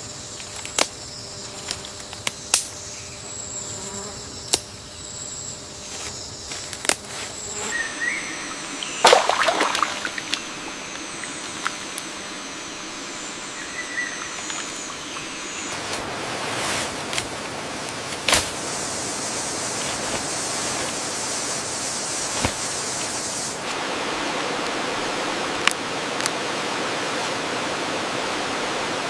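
Rainforest ambience dominated by insects: a steady high insect drone with scattered sharp clicks and taps. The background changes abruptly several times, and over the second half it becomes a more even hiss.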